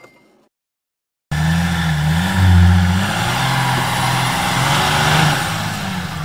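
About a second of silence, then a BMW X5 SUV's engine comes in suddenly, revving up and down before holding steady, running under load as it tries to tow the old car out of the shed.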